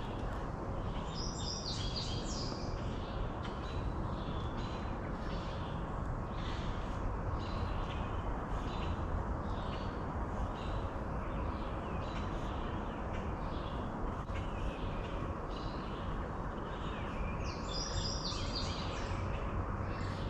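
Birds calling over a steady outdoor rush. Short high calls repeat about once a second, with a quicker run of higher notes about a second in and again near the end.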